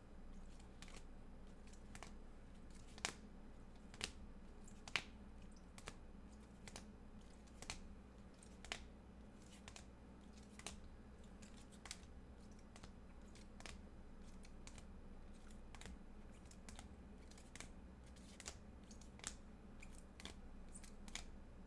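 Rigid plastic card holders clicking and tapping against each other as a stack of trading cards is flipped through one at a time: faint, irregular sharp clicks about once or twice a second over a low steady hum.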